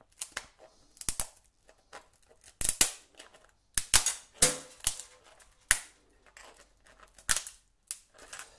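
A smoked spider crab claw being cracked open with a metal crab cracker: a series of sharp, irregular cracks and snaps of shell, loudest about halfway through.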